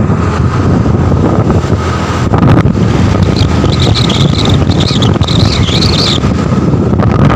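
Wind buffeting a phone microphone on a moving scooter, loud and rough, with the motor and road noise underneath. A high wavering whistle rides over it for a few seconds in the middle.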